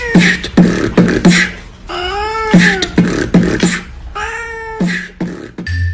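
A cat meowing three drawn-out times over a rhythmic beatboxed beat of thumps and clicks, about two to three beats a second. A marimba-like tune comes in right at the end.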